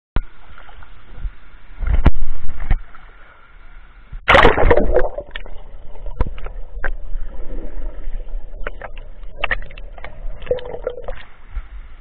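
Water splashing around a swimmer and the camera as it goes under the surface of a river pool, with a big splash about four seconds in. This is followed by muffled underwater sound with scattered knocks and clicks.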